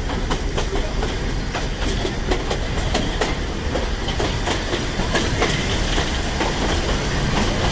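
Nilgiri Mountain Railway toy train running, its wheels clicking irregularly over the rail joints above a steady rumble of the carriage.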